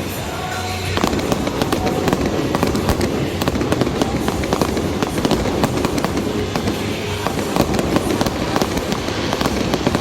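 Fireworks display with a dense, continuous crackling and popping of bursting shells, easing for a moment in the first second. Music plays underneath.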